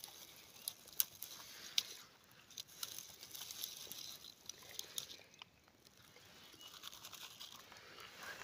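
Scattered light crackling and rustling of dry leaves and twigs, as if stepped on or pushed through in forest undergrowth.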